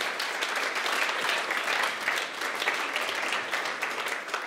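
Congregation applauding: a dense round of clapping that tapers off toward the end.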